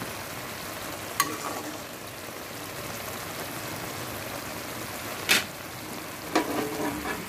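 Ridge gourd and potato curry in poppy-seed gravy sizzling in a kadai, a steady frying hiss, with two sharp clicks about four seconds apart.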